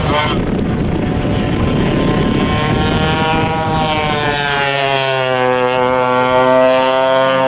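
Vintage racing kart engines running on track; from about three seconds in one engine's note stands out, rising slightly and then holding steady. A short rush of noise comes at the very start.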